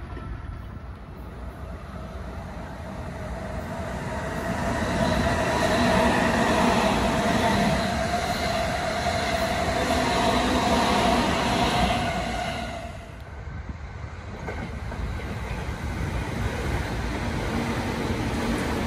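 Electric passenger train passing close by at speed: wheels running on the rails with steady whining tones, building up, loudest for several seconds, then falling away about 13 seconds in. Another train then comes past, its running sound rising again towards the end.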